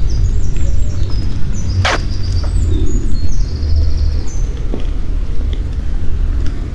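Outdoor street ambience: a steady low rumble with small birds chirping high above it, and one sharp click about two seconds in.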